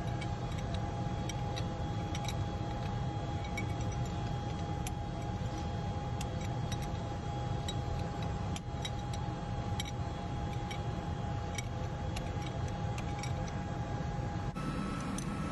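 Steady engine-room drone of running marine diesel machinery: a low rumble with a steady whine over it, and scattered light metallic clicks from a fuel pipe union nut and spanner being handled. The drone changes abruptly near the end.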